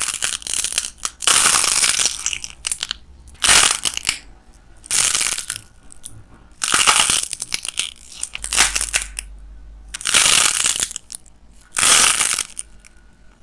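Dried light clay, partly wrapped in cling film, being cracked, torn and squeezed by hand: a series of crunching, crinkling bursts, each lasting about half a second to a second, with short gaps between.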